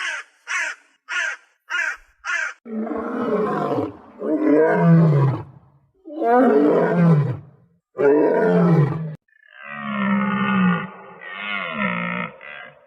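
A large animal roaring: four long, rough roars, each dropping in pitch at the end, followed by steadier, lower calls near the end. The roars are preceded by about five short, quick calls from a bird, evenly spaced.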